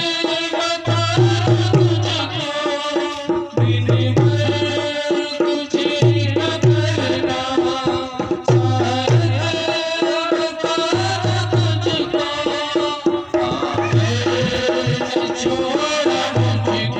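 Hindi Christian devotional song: a melody over a steady tabla-style hand-drum rhythm, with deep drum strokes in short groups about every two and a half seconds.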